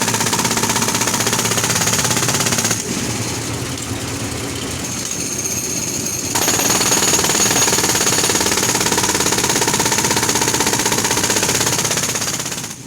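Compressor-powered road drill hammering into the road surface in rapid, continuous blows. About three seconds in it turns quieter and duller for a few seconds, then comes back at full strength.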